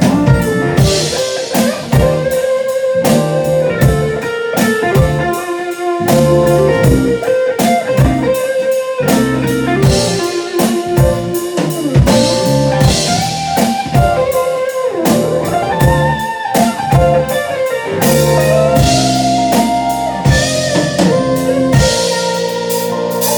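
Live band music without vocals: a guitar melody with held, bending notes over a drum kit beat.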